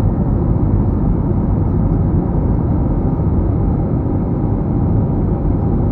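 Airbus A321 cabin noise: a loud, steady rumble of jet engines and rushing air heard from inside the cabin.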